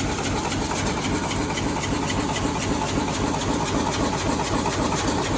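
H-type fin press machine running, stamping heat-exchanger fins with a steady, rapid, even rhythm of strokes over its continuous running noise.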